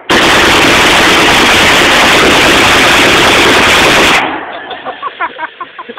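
A semi-automatic rifle being bump-fired in one long rapid burst of about four seconds, the shots so fast and loud that the recording clips and they blur into one continuous blast, stopping abruptly.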